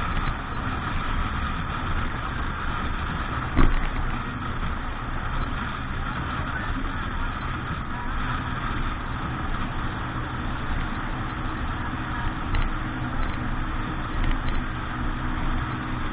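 Boat engine running steadily, with one sharp knock about three and a half seconds in.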